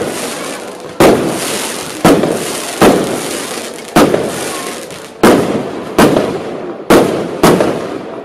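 Aerial firework shells bursting overhead: about eight sharp bangs roughly a second apart, each followed by a fading tail.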